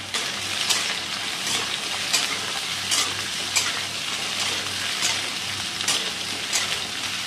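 Pointed gourd (parwal) pieces frying in hot mustard oil in a metal kadhai, sizzling steadily, while a metal spatula stirs and turns them with a sharp scrape against the pan roughly every three-quarters of a second.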